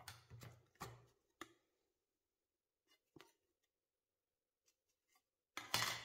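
A few short clicks and knocks of something being handled: four in the first second and a half, one more about three seconds in, then a louder half-second of noisy scraping or rattling near the end.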